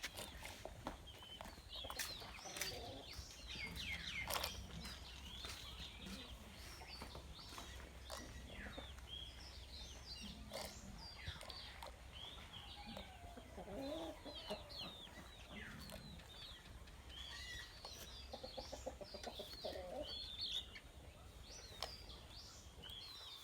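Chickens calling: a scatter of many short, high chirps throughout, with a few lower clucks from hens now and then.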